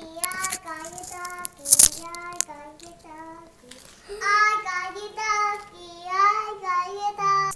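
A young child singing in a high voice, holding long steady notes in short phrases with a pause in the middle. A sharp knock sounds once about two seconds in.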